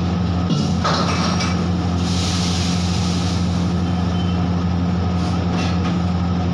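Steady, loud electric motor hum of a commercial kitchen fan, with a brief clatter about a second in and a short hiss around two to three seconds in.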